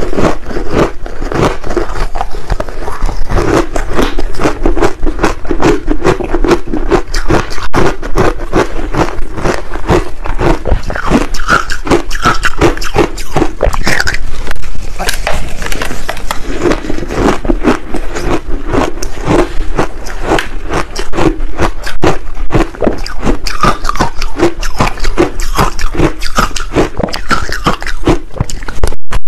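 Soft frozen ice balls coated in green barley powder being bitten and chewed: loud, rapid crunching and crackling of soft ice between the teeth, continuing without a break.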